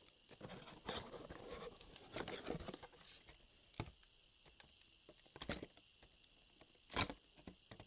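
Handling noise from a cardboard toy box and its packaging: scattered light taps, clicks and rustles, the sharpest knock about seven seconds in.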